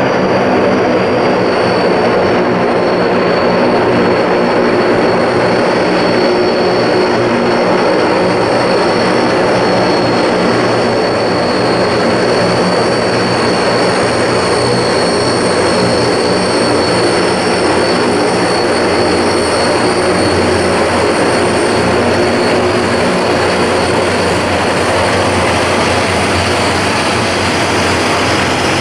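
Aircraft engines running steadily and loudly, a constant high whine over a deep hum with little change in pitch. The sound cuts off abruptly near the end.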